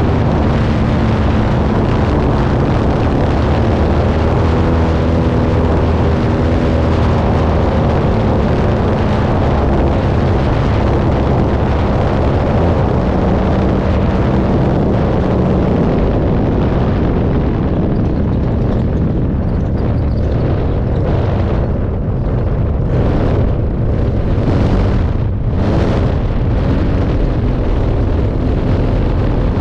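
Senior Telemaster RC plane's engine running, heard from a camera mounted on the plane under heavy wind rush on the microphone. About halfway through the engine's steady pitch fades as the plane comes in to land. The last part is a rough rumble with a run of short knocks as it rolls over the grass strip.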